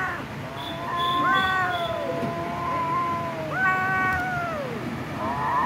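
Cats meowing: a run of long, drawn-out meows, two of them overlapping about a second in, each sliding down in pitch at its end, with a shorter wavering one near the end.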